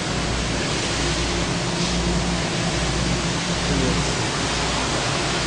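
Plastic crate washing machine running: a steady rush of spraying water over a low, steady machine hum.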